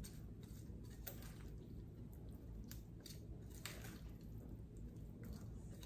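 A white slotted serving spoon tossing dressed macaroni salad with chopped romaine in a large glass bowl: faint wet squishing and stirring, with a few soft scrapes here and there.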